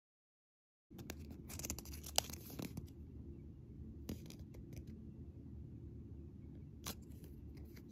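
Close-miked handling of small plastic toy pieces and a cardboard card: a burst of crinkling and crackling starting about a second in, then scattered single clicks and taps over a steady low hum.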